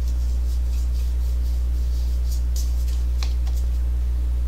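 A steady low hum, with a few faint rustles and one sharp click about three seconds in.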